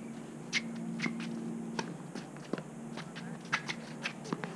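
Tennis balls knocking on rackets and on a hard court: sharp separate pocks, irregularly spaced and some about half a second apart, over a steady low hum.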